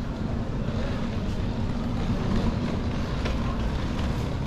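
Steady low rumble of city street ambience, with a few faint clicks.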